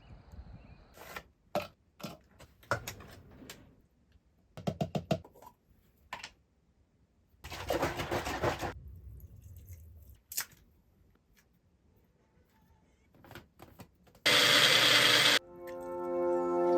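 Scattered short clicks and knocks, a quick run of ticks, and a brief noisy rustle, then a loud burst of noise that cuts off suddenly. Brass music begins near the end.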